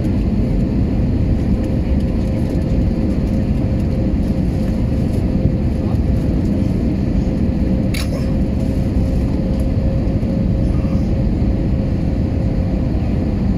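Airbus A320 cabin noise on final approach: a steady low rumble of the engines and airflow with a thin steady hum over it. A single sharp click a little past halfway.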